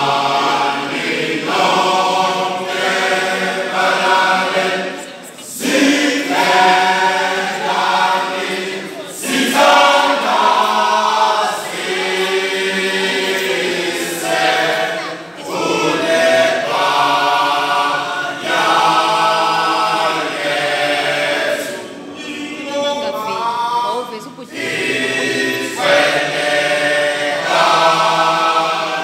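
Male isicathamiya choir singing a cappella in close harmony, in sustained phrases with short breaks between them.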